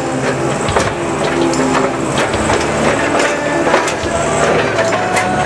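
Manitou telehandler's diesel engine working under load as its buck rake pushes silage on the clamp, with repeated knocks and rattles over the engine's steady note.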